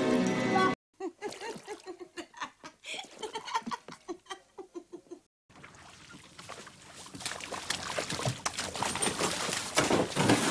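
Laughter in short repeated bursts for about four seconds. After a break comes water sloshing and splashing around a rowboat and its oars, growing louder near the end.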